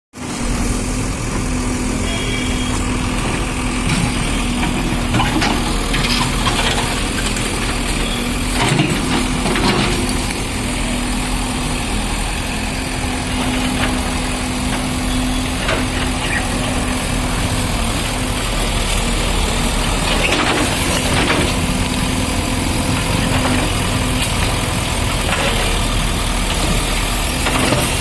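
Diesel engine of a Tata Hitachi earthmoving machine running steadily, with scattered knocks and crashes as it breaks concrete beams.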